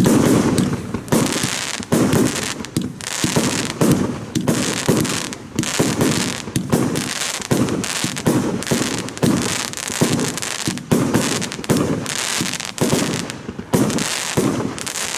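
Evolution "Snowstorm" 100-shot 30 mm firework battery firing in rapid succession: a continuous run of sharp launch and burst reports, about two a second, with a haze of crackle between them.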